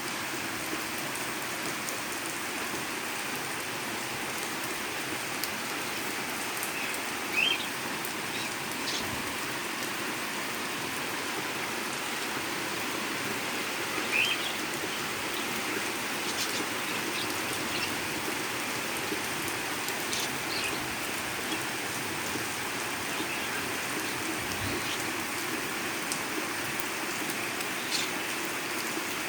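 Heavy rain falling steadily on the ground and surfaces, an even hiss with scattered drip ticks. Twice a short high rising chirp stands out above it.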